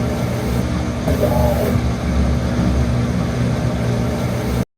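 Midea Wave Agitator washing machine running, a steady low motor hum, with a short higher-pitched note about a second in. The sound stops abruptly near the end.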